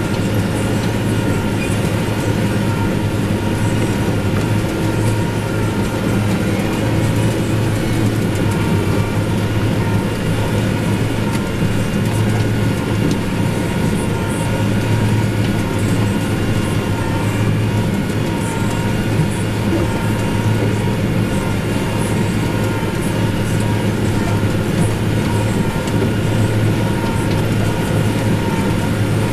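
Farm tractor's diesel engine running steadily under load during hay work, a constant low drone with faint scattered ticks over it.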